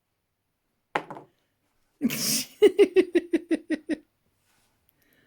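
A person laughing: a breathy burst, then a quick run of about eight short 'ha' pulses that stop about four seconds in. A brief sound comes first, about a second in.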